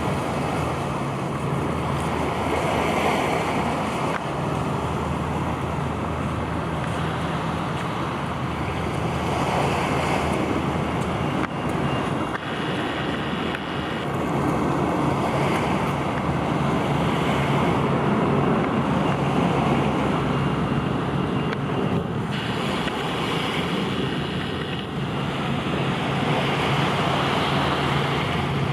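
Wind buffeting the microphone, swelling in gusts every few seconds, over a steady low hum.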